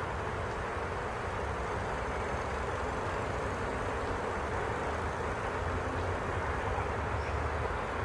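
A steady, even rushing noise with a low rumble beneath it, unchanging throughout, and a faint high chirp near the end.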